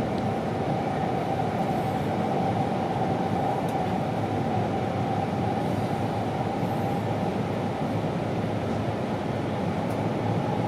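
Cabin running noise of an E2 series Tohoku Shinkansen train: a steady rumble and rush with a faint steady whine.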